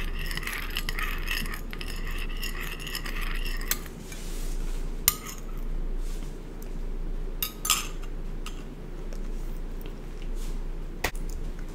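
Metal spoon stirring and scraping inside a china teacup, clinking rapidly and ringing for the first few seconds, then a few single taps against the cup.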